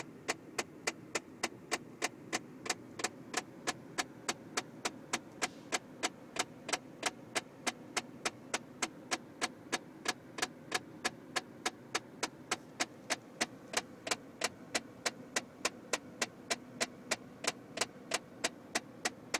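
Rapid, evenly spaced clicking from somewhere in a car's interior, about three sharp clicks a second, over a steady low hum; the clicking stops at the end. The source of the clicking is unknown, and it is likened to something trying to get out.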